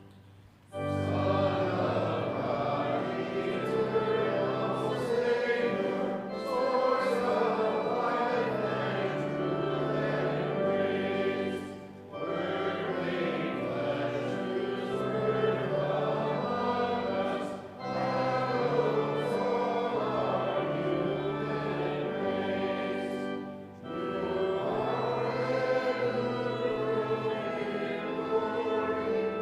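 A congregation singing a hymn to instrumental accompaniment. The singing comes in about a second in, after a short quiet gap, and moves in phrases about six seconds long with brief breaks between them.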